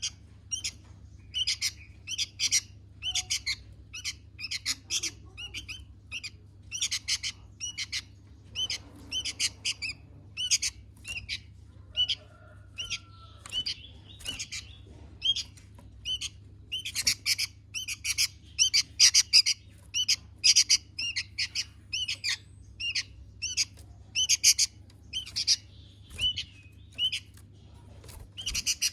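Sooty-headed bulbul calling over and over: short, bright chirping notes in quick clusters, some louder than others.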